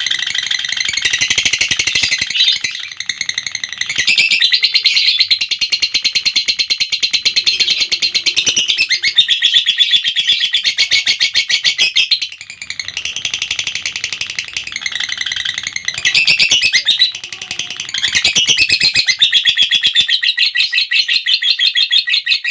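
Lovebird's long 'ngekek' chatter: a shrill trill of very rapid notes, held for many seconds with only brief breaks.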